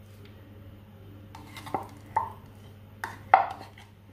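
Metal spoon scooping thick dulce de leche out of a tin can: four short scrapes and clinks against the metal, the loudest about three seconds in, over a low steady hum.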